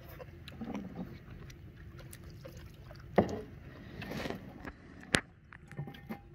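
A small boat being paddled: paddle strokes swishing through the water, with scattered knocks against the hull, two sharper ones about three and five seconds in.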